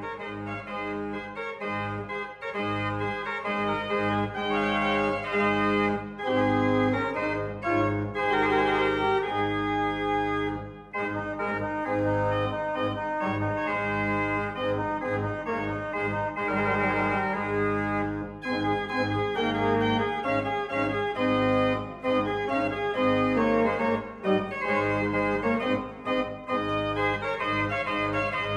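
Organ music: sustained chords with a moving melody line over them, swelling a little about two seconds in.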